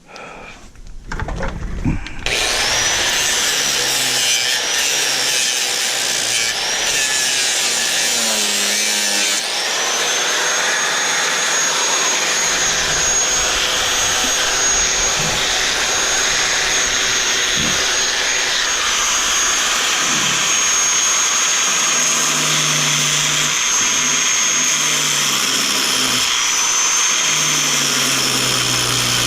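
Electric angle grinder with a cut-off wheel cutting into a box, starting about two seconds in and running steadily with a high whine that dips now and then as the wheel bites. The wheel is worn down, too small for the cut.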